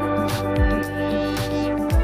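Background instrumental music with a steady beat: held tones over a deep kick drum that thumps about every 0.7 seconds.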